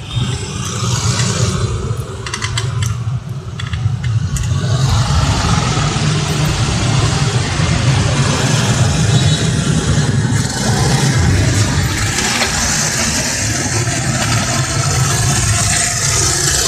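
Motorbike engines running close by in street traffic: a steady engine hum with road noise, louder from about four seconds in.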